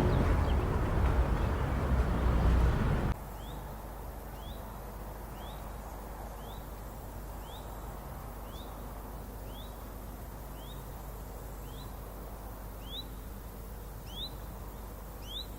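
Loud, dense noise that cuts off suddenly about three seconds in, followed by a bird calling a short rising note about once a second over quiet outdoor background.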